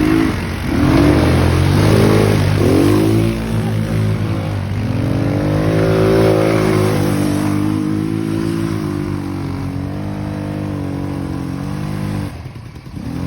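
Engine of a 200cc ATV revved up and down several times in quick succession, then running at a fairly steady, gently wavering speed, with a brief dip near the end.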